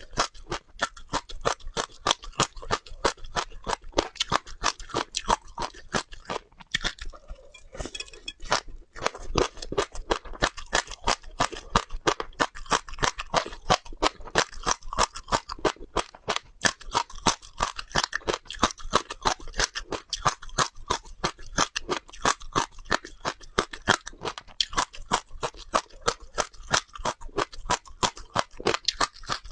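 Close-miked chewing of crunchy seeds: a rapid run of sharp crunches, several a second, with a brief lull about a quarter of the way through.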